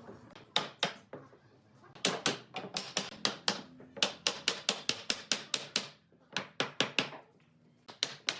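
Sharp knocks of a tool striking wood, in quick runs of about three to four blows a second with short pauses between the runs.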